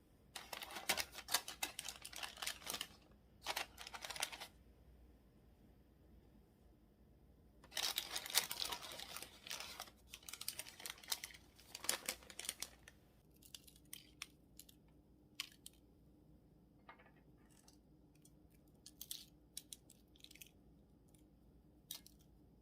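Bursts of rustling and tearing, like paper, foil or plastic being handled, followed by scattered light clicks and taps.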